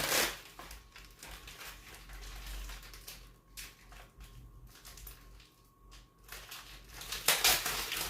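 Plastic pepperoni packaging rustling and crinkling as it is opened and handled, with light clicks. There are louder rustles at the start and about seven seconds in.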